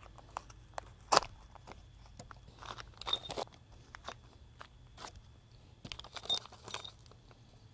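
Small parts and packaging being handled: scattered light clicks, the sharpest just after a second in, and two short crinkling rustles, about three seconds in and again near the end.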